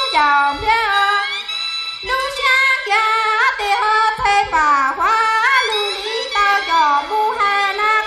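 A woman singing solo into a stage microphone, a high voice that slides and bends between notes, with short breaks between phrases.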